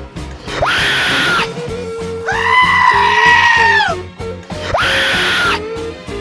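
Loud music with a steady beat and bass line, over which shrill screams repeat: a short shriek about half a second in, a long held scream that falls in pitch at its end in the middle, and another short shriek near the end.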